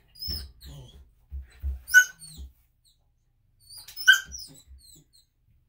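Bernedoodle puppy yelping and whining while its nails are clipped, with two sharp high cries about two seconds apart. It is the puppy's vocal protest at being handled, which the groomer says doesn't mean he is getting hurt.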